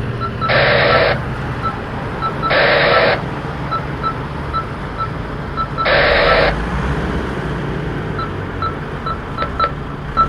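Two-way radio giving three short bursts of static, each about half a second long, over a steady low vehicle engine hum, with faint regular pips.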